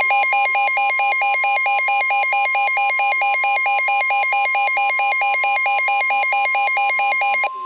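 Emergency Alert System warning tone from a NOAA Weather Radio broadcast: a loud, steady single tone of about 1050 Hz. Over it a second, two-tone alarm alternates about four times a second, then cuts off near the end while the steady tone carries on.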